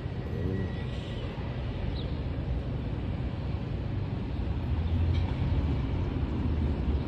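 Outdoor ambience: a steady low rumble that grows a little louder about five seconds in.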